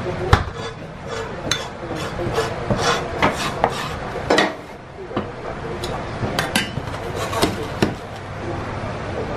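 Irregular clinks and knocks of a metal ladle against a ceramic sauce pot and a styrofoam takeaway box as soy sauce is spooned over chopped chicken and the box is handled, over a steady background noise.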